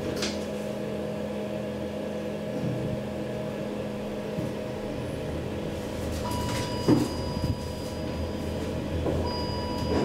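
KONE traction elevator running with a steady low hum. A thin high tone comes on about six seconds in and again near the end, with a single knock just before seven seconds.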